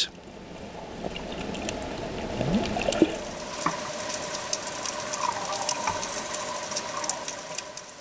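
Underwater water sound: a steady watery wash with gurgling and scattered faint clicks.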